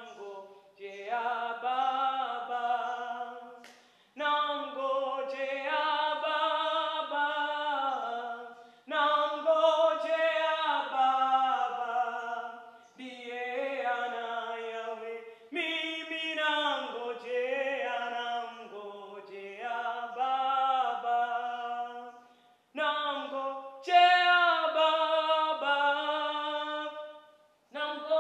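A woman singing a worship song unaccompanied, in phrases of three to four seconds separated by brief pauses for breath.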